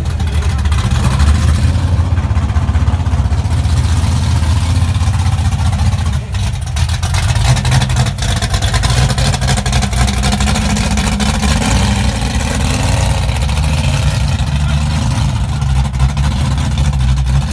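Supercharged V8 of a classic Mustang coupe running at low speed with a loud, steady, pulsing exhaust as the car rolls slowly by.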